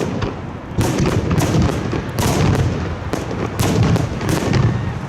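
Aerial fireworks bursting: a quick succession of booms, about one every half second to second, each trailing off in a low rumble.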